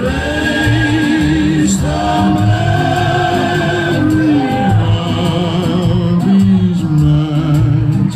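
Loud music: long, wavering sung notes over a low bass line.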